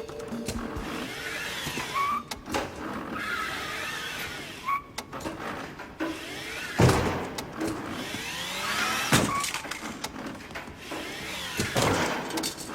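Film sound effects with no dialogue: whining, sliding pitch glides and mechanical noise, broken by three sharp hits about halfway through and near the end.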